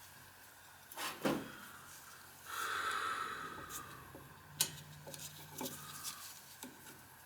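Scattered light clicks and handling noises of hand work on a Taco zone valve head and its wiring, with a short breathy hiss about two and a half seconds in.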